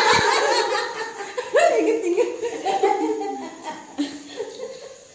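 Two women laughing, with a fresh burst of laughter about one and a half seconds in that dies down toward the end.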